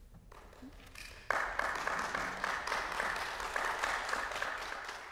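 Audience applause: a few scattered claps, then about a second in the whole hall breaks into dense, steady clapping. This is the ovation at the end of a song.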